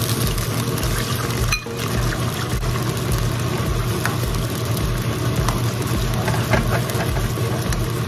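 Shrimp sizzling steadily as they fry in hot vegetable oil in a nonstick pan, with faint scrapes of a metal ladle turning them.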